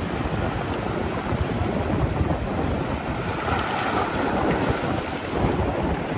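Wind buffeting the microphone with a steady, heavy rumble, over the wash of sea surf on the shore.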